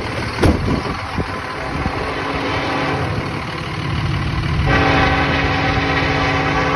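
Norfolk Southern SD70 diesel locomotive rumbling as it approaches, then sounding its air horn, a loud sustained chord that starts about two-thirds of the way in. Two sharp knocks are heard at the very start.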